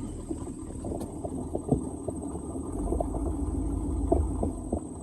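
Old square-body Chevy 3/4-ton pickup driving slowly over rough ground: a low engine rumble with frequent short knocks and rattles from the truck jolting over the bumps.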